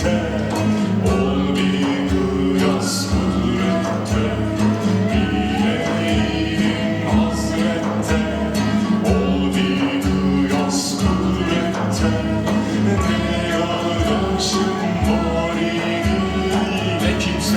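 Music with a steady low beat under a held drone, with singing.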